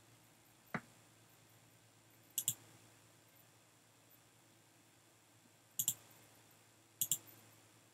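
Computer mouse button clicking: a soft tick about a second in, then three sharp double clicks (press and release) spread through the rest, over a faint steady hum.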